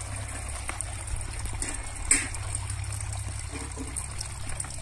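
Water trickling steadily over a low steady rumble, with a brief click about two seconds in.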